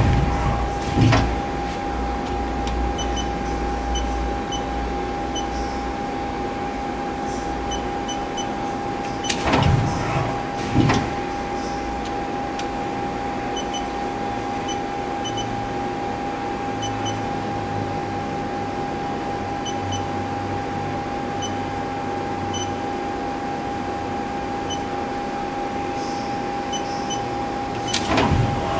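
Haas TL-15 CNC lathe running with a steady mechanical tone, its tool turret indexing with short clunks: a pair about ten seconds in and another pair near the end.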